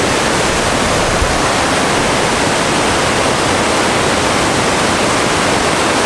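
Waterfall pouring: a steady, loud rush of water.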